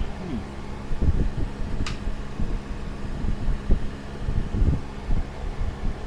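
Electric fan running steadily, its airflow buffeting the microphone in low rumbling gusts. One sharp metallic click about two seconds in.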